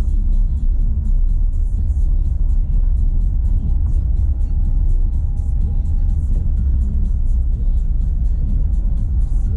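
Renault Sandero Stepway 2 driving over a dirt road: a steady low rumble of tyres and suspension with many faint irregular clicks. The car has a small knock in its right-side suspension on rough ground.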